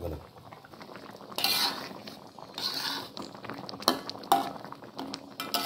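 A spatula stirring thick curry in a wok: a couple of scraping strokes along the pan, then two sharp knocks against it.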